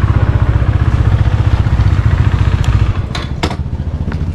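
KTM Duke motorcycle engine running at low speed with an even throb, easing off about three seconds in, when two sharp clicks come.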